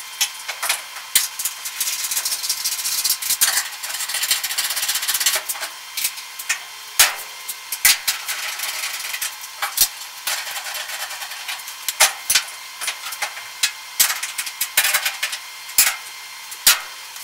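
1963 Chevy truck's steel front fender being set against the cab and rocker panel and shifted into line: irregular metal clanks and knocks, with a stretch of scraping a few seconds in.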